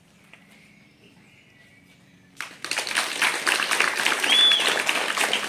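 Applause from a small group of children and adults, starting suddenly after about two seconds of near quiet and keeping on steadily.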